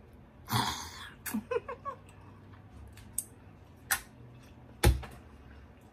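Mouth sounds of a person eating: a breathy exhale about half a second in and a few short hums, then three separate sharp clicks, the last the loudest.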